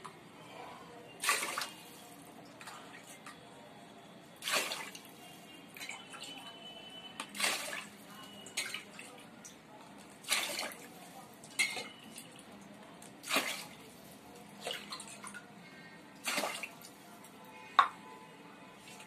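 Water poured a tumblerful at a time into a pot of rice and moong dal: a short splash about every three seconds, with small clinks in between.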